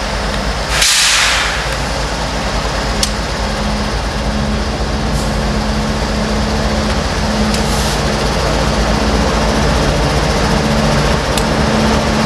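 Diesel train locomotive running with a steady low rumble and engine hum, a short hiss about a second in, and a few sharp clicks later on.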